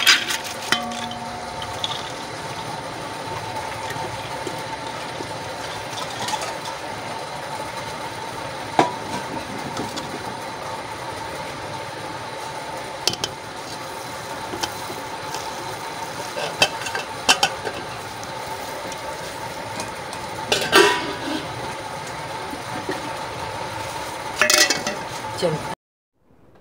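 Chana dal rattling into a metal pressure cooker pot, then minced chicken tipped in from a metal bowl, with scattered clinks and scrapes of the bowl against the pot over a steady hiss. The sound cuts off near the end.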